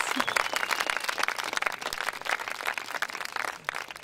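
Audience applause with dense clapping that thins out and fades away toward the end.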